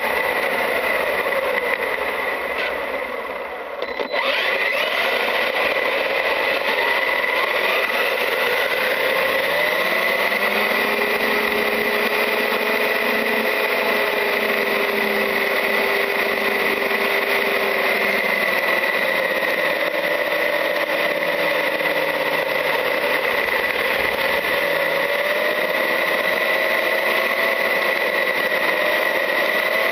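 Traxxas UDR RC truck's electric motor and drivetrain whining, rising and falling in pitch with speed over a steady rushing noise of tyres on gravel. It eases off briefly around three seconds in, then picks up sharply again.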